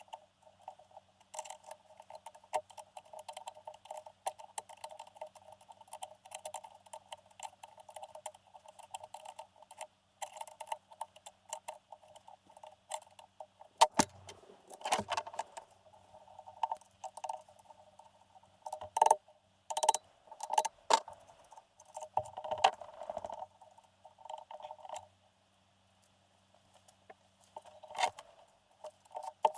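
Light metallic clicking and clinking of hand tools on engine parts, in irregular clusters with louder bursts in the middle, and a short dead-quiet gap near the end.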